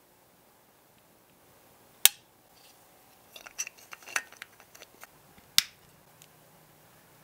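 Hard small clicks and taps from a 1:18 scale diecast model car being handled: two sharp clicks about three and a half seconds apart, with a quick run of lighter ticks and taps between them.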